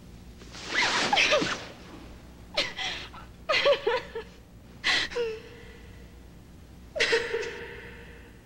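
A woman's breathy gasps and sighs, in about five short bursts.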